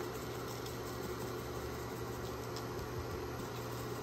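A steady low hum with an even hiss over it, from some machine running in the background.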